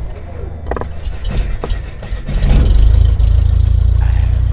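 Logo-intro sound design: a few sharp hits in the first two seconds, then a loud, deep rumble that swells in and holds steady.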